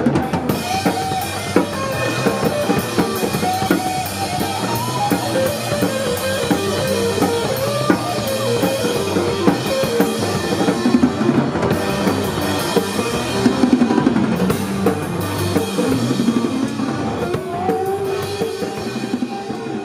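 Live band playing an instrumental passage with the drum kit loud and busy: steady snare, bass drum and cymbal hits over guitar and bass.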